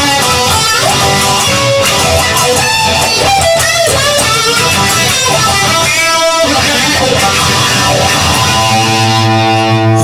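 Instrumental passage of a rock-style song carried by guitar, with many changing notes, ending on a long held chord about a second and a half before the end.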